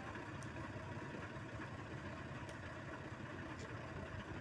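Crane tow truck's engine idling steadily, a low, even running sound with a few faint clicks over it.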